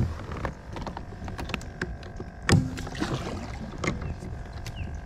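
Pelican Catch PWR 100 sit-on-top fishing kayak on the water: scattered knocks against the plastic hull and one heavier thump about halfway through, with a faint steady hum underneath.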